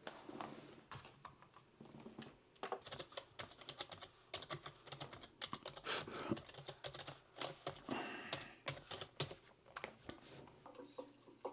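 Typing on a keyboard: quick, irregular key clicks, fairly faint.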